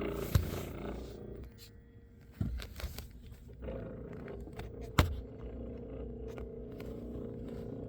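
Noise from a 2025 Ram RHO's brake system as the brake pedal is pushed with the truck in park. There are three sharp knocks, and a steady hum sets in about halfway through, after a running noise fades out in the first second and a half.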